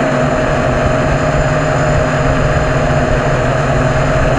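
FPV freestyle quadcopter's four brushless motors and propellers spinning steadily at idle: the quad is armed and sitting on the ground, heard very close through the camera mounted on it.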